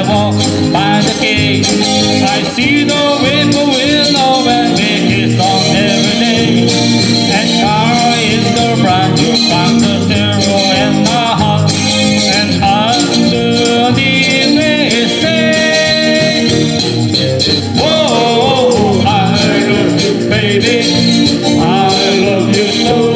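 Live band playing an upbeat pop song over the hall's loudspeakers, loud and continuous with a steady beat.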